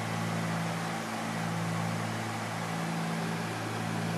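Cabin drone of a Cessna 310Q's twin piston engines and propellers in cruise: a steady low hum over a constant hiss, heard from inside the cockpit.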